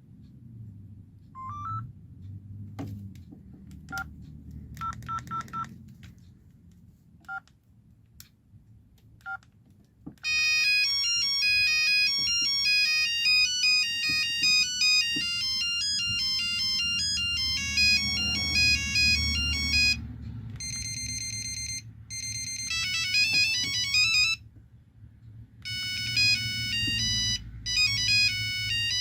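LG V111 mobile phone: short key beeps and button clicks for the first ten seconds, then loud electronic ringtone melodies from the phone's speaker, stopping and switching to a different tune several times as ringtones are previewed one after another.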